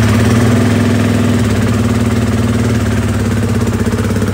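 Beta 390 RR-S single-cylinder four-stroke engine idling steadily just after starting, run to warm it up before an oil change.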